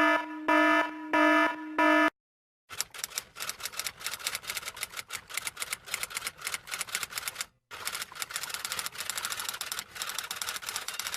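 Four short electronic beeps, then fast, irregular typing: key strikes clattering several times a second, with one brief pause midway.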